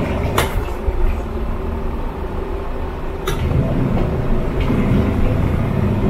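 Mito portable washing machine running its wash cycle: the motor and agitator churn foamy water and clothes in a steady low rumble. Two brief clicks, about half a second in and just past three seconds.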